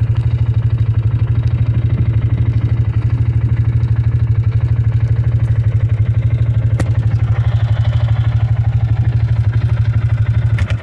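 Side-by-side utility vehicle's engine running steadily with a rapid, even pulsing, heard from the seat of the moving buggy; it stops abruptly at the end.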